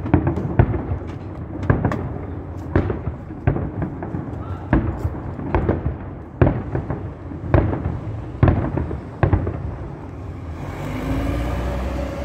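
Aerial firework shells bursting, a sharp bang about once a second with a rumbling crackle between. Near the end the bangs stop and only a steady noise remains.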